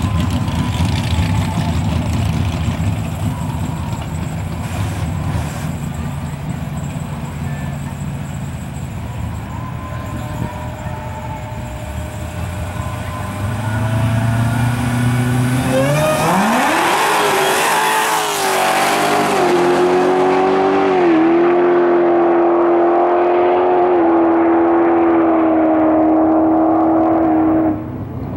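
Dodge Challenger Hellcat's supercharged Hemi V8 rumbling at the start line, then launching about halfway through on a full-throttle drag-strip pass. The engine note climbs and drops back with each upshift. The sound cuts off abruptly near the end.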